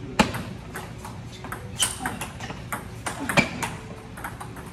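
Table tennis rally: the ball clicking off the paddles and the table in quick succession, with sharper strokes about every second and a half.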